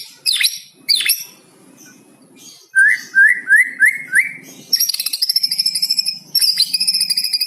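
White-rumped shama singing a varied song that includes mimicked cucak cungkok phrases. It opens with sharp falling whistles, then five rising slurred notes, and about two thirds of the way in breaks into a fast, high, rapidly repeated trill.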